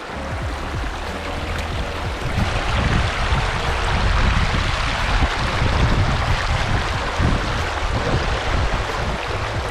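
Running creek water, a steady rushing, with wind buffeting the microphone in low gusts.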